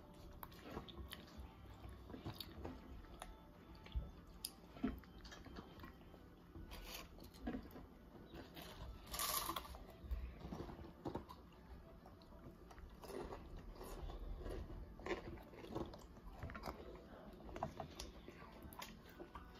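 Potato chips being bitten and chewed: scattered crunches at irregular intervals.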